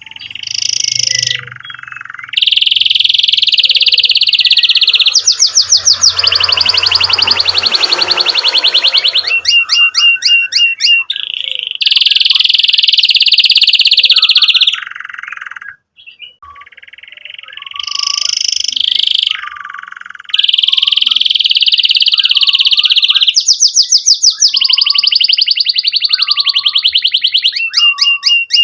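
Domestic canary singing loudly in long, fast, high-pitched trills and rolls broken by short chirps, with a brief pause about halfway through.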